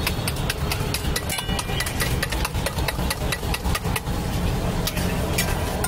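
Metal spoon clicking rapidly against a steel bowl as egg mixture is beaten, over a steady low rumble. About four seconds in, the bowl is tipped and the spoon scrapes the mix out onto the griddle.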